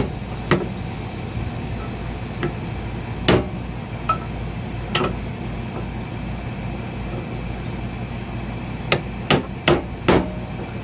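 Hammer tapping on a socket to drive a metal-clad wiper seal into a hydraulic bead breaker's cylinder: single taps spaced a second or two apart, then four quick taps near the end as the seal is seated flush.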